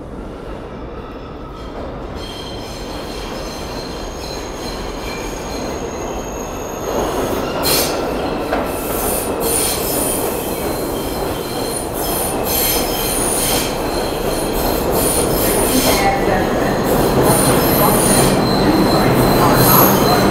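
New York City subway train coming through a curve into the station, its wheels squealing in steady high tones over the running noise of the cars. It grows louder throughout, with a jump about seven seconds in as the cars reach the platform.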